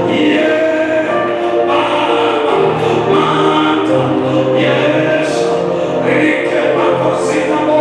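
Congregation or choir singing a gospel song together over instrumental accompaniment.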